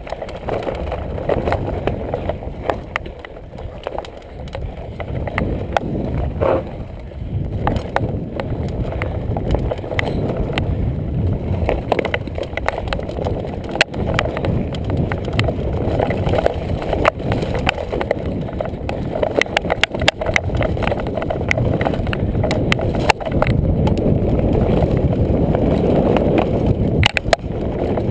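Mountain bike riding down rough singletrack: the tyres rumble continuously over dirt and rock, and the bike frame and chain clatter sharply throughout.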